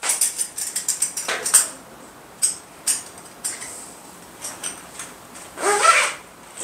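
Metal harness hardware (buckle and D-rings) clinking and webbing rubbing as a scuba harness waist strap is threaded and adjusted: a scatter of small sharp clicks and jingles, with a longer, louder rub about six seconds in.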